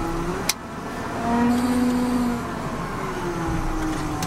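Cab interior sound of a Volvo BM L70 wheel loader's six-cylinder Cummins diesel running while the loader works. The engine note rises to its loudest about a second in, then eases back and dips again. A single sharp click sounds about half a second in.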